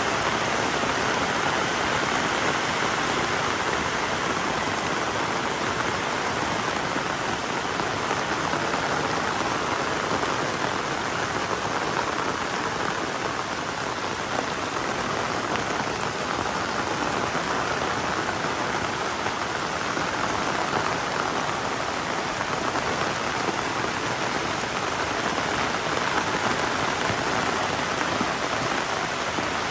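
Heavy tropical rain pouring steadily, a dense even hiss of drops that eases a little midway and then builds again.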